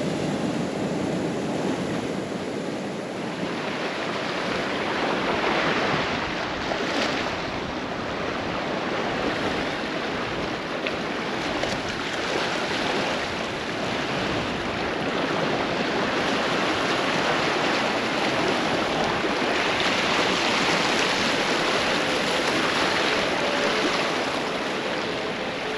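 Ocean surf breaking and surging over rocky shoreline: a continuous wash of white water that swells and eases as the waves come in.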